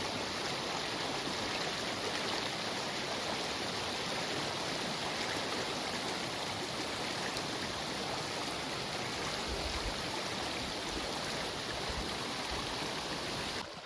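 Steady rushing of stream water running over rapids.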